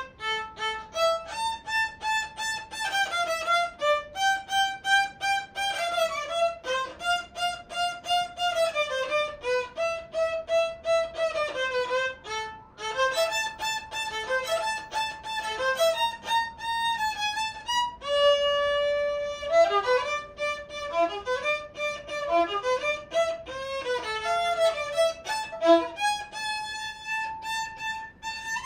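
A child's small-size violin bowed solo, playing a melody of held and quicker notes, with a long held note about two-thirds of the way through.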